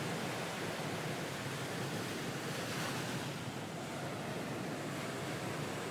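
Ocean surf, a steady wash of waves with a slight swell about halfway through.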